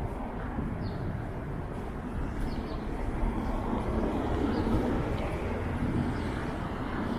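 Downtown city street ambience: a steady rumble of passing traffic that swells a little in the middle, with faint, short high chirps now and then.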